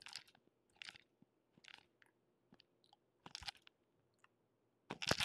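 Faint mouth and throat sounds, a handful of short gulps and smacks, as a man struggles to swallow a pill.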